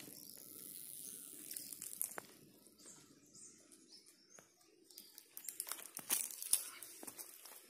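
Faint footsteps crunching on dry fallen leaves along a dirt path. After a soft hiss at first, scattered crackles grow more frequent in the second half.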